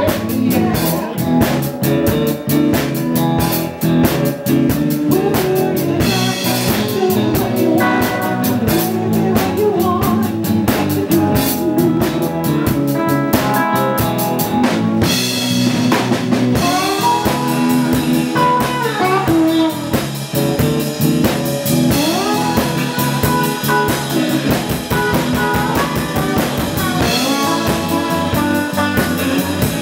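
Live blues band playing: electric guitar over drum kit and keyboard.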